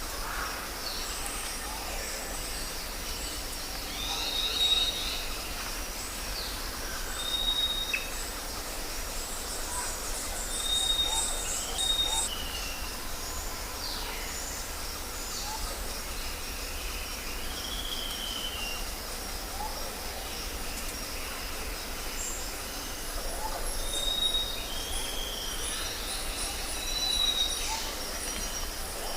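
Jungle ambience: birds give short whistled notes and gliding calls over a steady, high-pitched insect drone.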